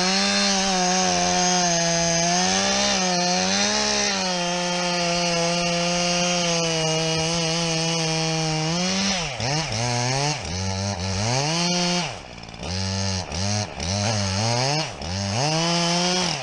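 Chainsaw cutting into a tree trunk while felling it, held at a steady pitch under load for about nine seconds, then revved up and down over and over until near the end.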